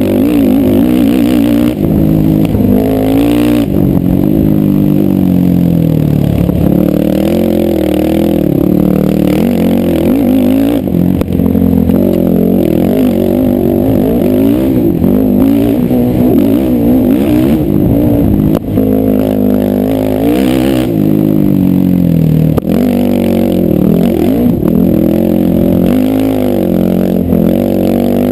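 Sport ATV engine, heard from the rider's seat, revving up and falling back over and over as the quad is ridden hard along a dirt trail.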